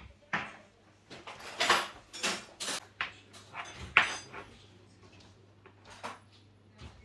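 Irregular sharp knocks and clatter of hard objects being handled and set down, several in quick succession, then fewer and fainter ones.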